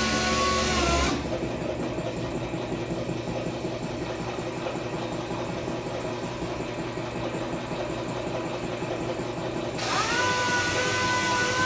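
A power tool's steady whine drops away about a second in, leaving a quieter, rough sound. Near the end it spins back up to a steady whine.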